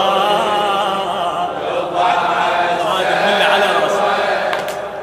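Men's voices chanting a Shia latmiyya (mourning chant) refrain in Arabic, the reciter with the crowd of mourners singing along in unison.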